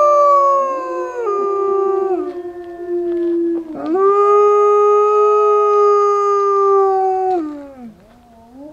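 Wolves howling in chorus, a white wolf among them: long, steady howls at different pitches overlapping. One howl slides down about a second in, a fresh one rises in about four seconds in, and the howling tails off near the end.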